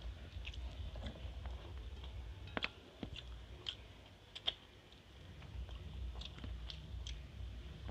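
Soft mouth sounds of someone eating rice and curry by hand: faint chewing with scattered small wet clicks.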